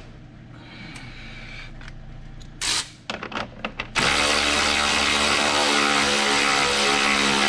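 A handful of light metal clicks, then about four seconds in a cordless electric ratchet starts and runs steadily, spinning the nut down onto a snowmobile's ski spindle bolt.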